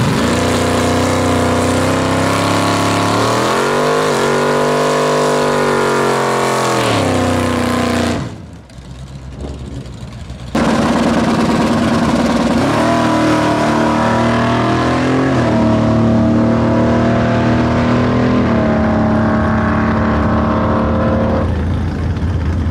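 Plymouth Duster drag car's engine running loud at the starting line, revved up and back down once, then after a short quieter break launched down the drag strip, its pitch climbing and dropping at each gear change.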